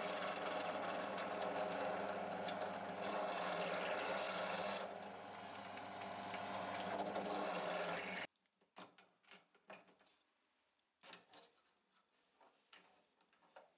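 Benchtop drill press running steadily as a small twist bit bores into a wooden handle. About eight seconds in the sound cuts off abruptly, followed by faint clicks and taps from hands working the drill chuck.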